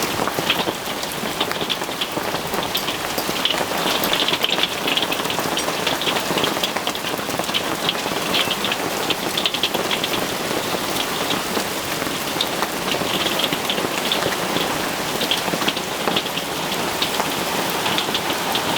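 Hail and rain pelting a roof overhead: a steady, dense clatter of many small impacts.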